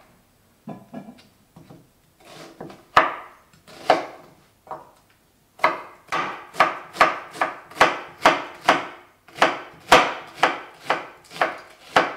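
Chef's knife slicing a raw onion on a wooden cutting board. A few separate cuts come first, then from about halfway a steady run of crisp cuts, about two a second.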